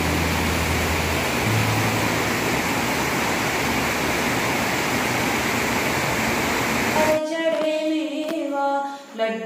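Heavy rain falling steadily, a dense even hiss. About seven seconds in it cuts off suddenly and gives way to a quieter pitched, wavering tone.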